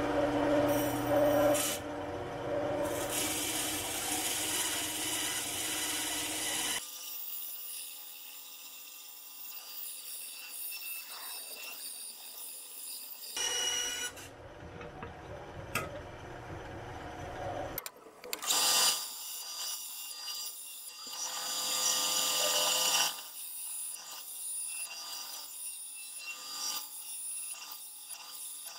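9-inch benchtop band saw cutting a 5 mm carbon fiber plate, the blade rasping through it. The cutting is loudest for the first several seconds, then comes in shorter passes around the curves, with the saw's steady running hum between them.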